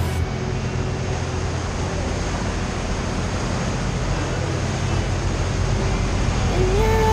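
Steady rumble and rush of a cruising tour boat under way: its engines running and the wake water churning.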